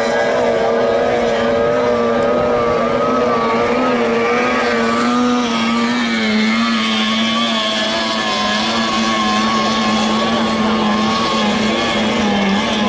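Outboard motors of at least two 30 hp tunnel racing boats running at full throttle together, a loud, steady high-pitched whine that wavers slightly in pitch.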